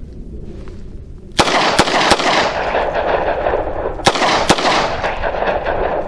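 Five shots from a Smith & Wesson Model 60 2-inch snub-nose revolver. Three come in quick succession, then two more about two seconds later, each followed by a long echo that fades away.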